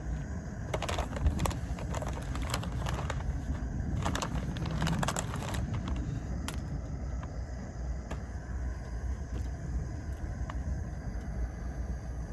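Noodle packaging crinkling and rattling in two bursts of crackly clicks as the noodles are taken out to go into the pot, then a few scattered clicks of handling, over a steady low rumble.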